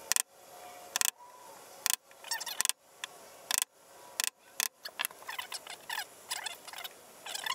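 Chisel cutting a hasp mortise in a wooden chest lid: sharp separate taps about once a second as the edge is set down along the marked outline, then quick short scraping cuts as the waste is pared out over the last couple of seconds.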